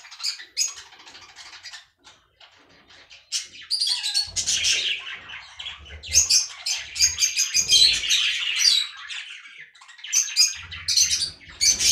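Budgerigars chirping and chattering in rapid high twitters. The twitters are sparse at first and become dense and continuous from about four seconds in.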